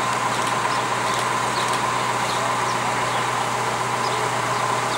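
Mobile crane's diesel engine running steadily.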